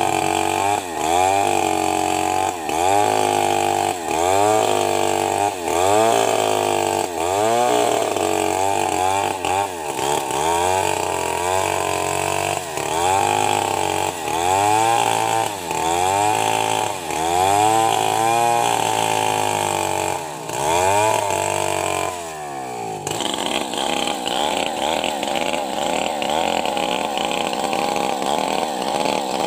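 Stihl 070 two-stroke chainsaw ripping lengthwise through a large trembesi (rain tree) log, the engine pitch dipping under load and recovering about once a second. After about twenty seconds it breaks off briefly, then runs on steadier and higher-pitched.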